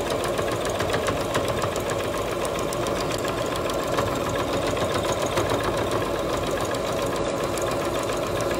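Electric computerised sewing machine running steadily, stitching a seam through layered fabric and batting.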